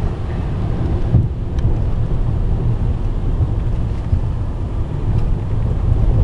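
Steady low rumble of a BMW E60 530d's straight-six diesel and tyre and road noise, heard inside the cabin while driving on a rough country road. There is a short thump about a second in.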